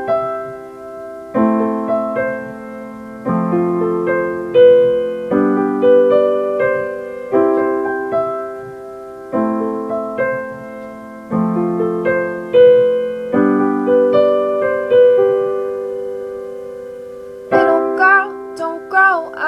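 Solo piano playing a slow introduction: a new chord about every two seconds with single notes moving above it, and one longer held chord before the end. A woman's voice comes in singing near the end.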